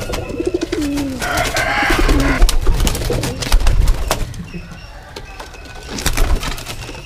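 Domestic pigeons cooing, low pulsed calls that fall in pitch, near the start and again about two seconds in. A rustling flutter, likely wings, comes about a second in.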